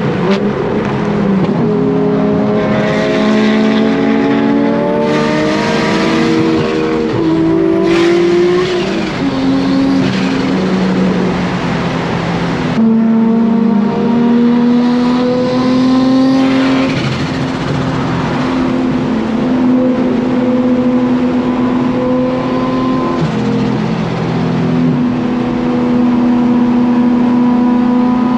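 Nissan Skyline R34 GT-R's big-turbo RB26DETT straight-six heard from inside the cabin, pulling up through the revs for several seconds, falling in pitch about eight seconds in, then running at fairly steady revs while cruising.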